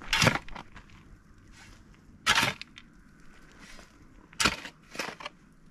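Steel shovel blade digging into dry, stony soil: four sharp, gritty scrapes, about two seconds apart, the last two close together near the end.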